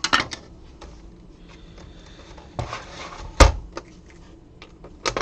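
Plastic clicks and knocks of a PS4 CUH-1215A console's tray being slid out and handled, with one louder knock about three and a half seconds in and a quick run of clicks near the end.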